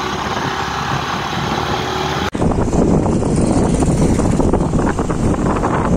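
A motor scooter's engine running under a rush of wind on a phone microphone while riding. About two seconds in the sound breaks off for an instant and comes back louder and rougher.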